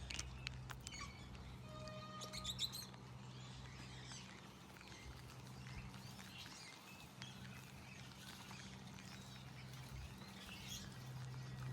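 Birds chirping and twittering in short, scattered calls, with a quick rattling run of notes about two and a half seconds in, over a steady low hum.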